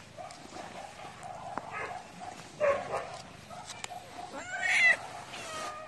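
A domestic cat meowing: short calls about two and a half seconds in, then a longer, louder meow that bends in pitch near the end, followed by a softer one.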